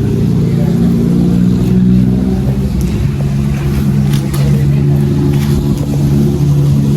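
An engine running steadily, its pitch dropping a step about three seconds in and then holding.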